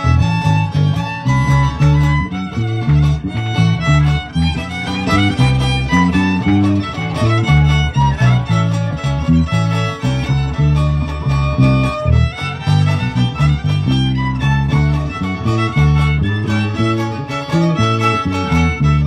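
Live band dance music: a violin carrying the melody over guitar and a pulsing bass line, with a steady beat.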